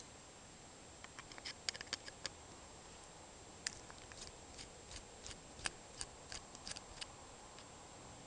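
Faint, irregular small clicks of a flat-blade screwdriver turning a small screw out of a 1978 delay-off relay's metal bracket.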